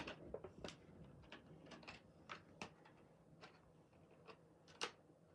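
Faint, irregular clicks and crinkles of a Hot Wheels blister card's plastic and cardboard being worked open by hand, with one sharper click near the end.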